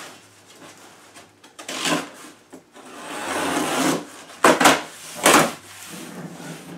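Packing tape on a large cardboard shipping box being cut and torn open, with a long ripping rasp about three seconds in. The cardboard flaps are then pulled up with two short, sharp scrapes.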